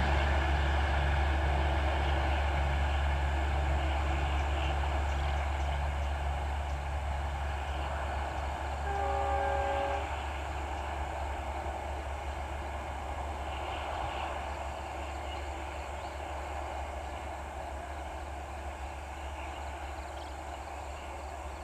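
Passenger train rumbling past and fading steadily as it draws away, accelerating behind its WDM3A diesel locomotive. About nine seconds in, the locomotive's horn sounds once: a chord of several tones about a second long.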